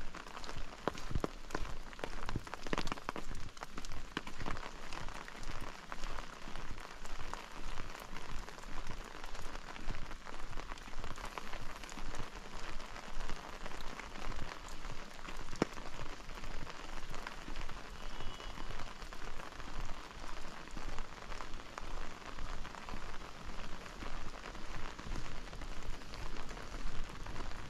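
Steady rain falling, with many single drops ticking close by, over walking footsteps at about two steps a second.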